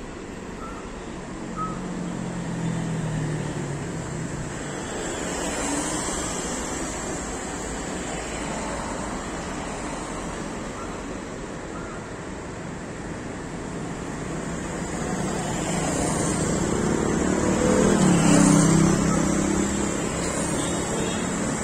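Traffic on a wet city road: tyres hissing on the wet tarmac and engines going by. A car passing close near the end is the loudest moment.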